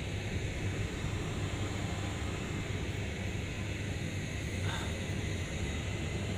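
Steady machinery drone of a running pump, an unbroken low hum with a noisy hiss above it.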